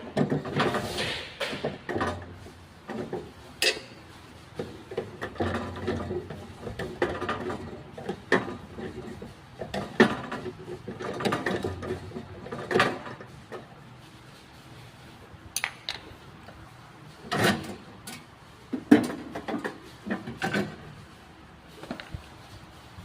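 Irregular clanks, knocks and rubbing of metal parts and tools being handled on a dough sheeter during repair work, with sharp single knocks every second or two.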